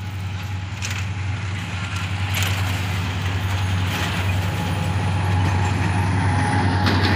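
Diesel locomotive engine running with a steady low drone as the train pulls away from the station, growing louder as it draws near.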